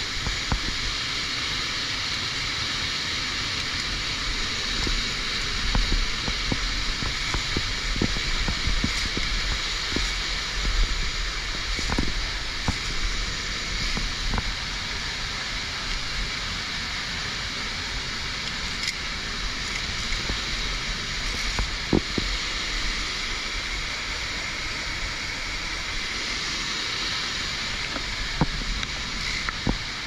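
Waterfall rushing close by in a steady, even rush of water. Now and then come sharp clicks and knocks from via ferrata carabiners and hands on the steel cable.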